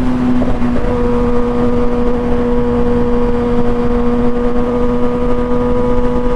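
Kawasaki ZX-6R's inline-four engine running at a steady high rpm while the bike cruises, its pitch dipping slightly about a second in, with heavy wind rush on the helmet-mounted microphone.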